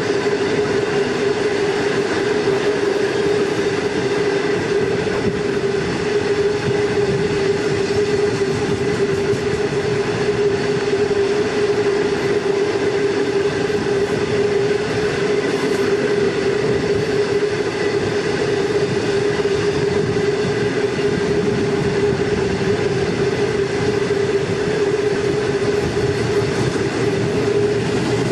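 Long freight train running along the line, heard from beside the moving wagons: a steady, loud running noise of wheels on rails with a constant tone held through it.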